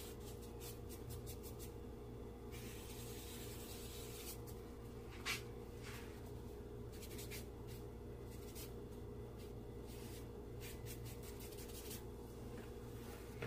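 Faint scratching and rubbing of charcoal on drawing paper in many short shading strokes, with one louder stroke about five seconds in, over a steady low hum.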